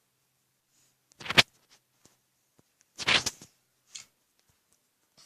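Handling noise: two short bursts of rustling and clatter, about a second in and again about three seconds in, with a fainter one a second later and near silence between.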